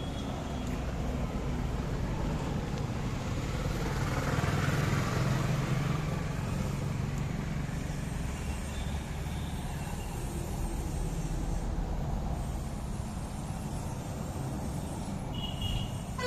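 Steady rumble of road traffic, swelling as a vehicle passes about four to six seconds in.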